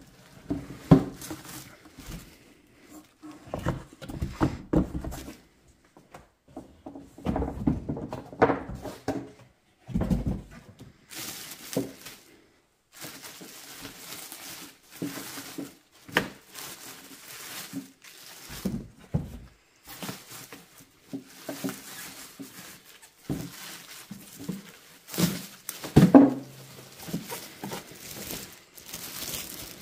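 Clear plastic packaging bag crinkling and rustling in uneven bursts as an air fryer is handled and unwrapped, with a few dull knocks of the appliance against the box, the loudest near the end.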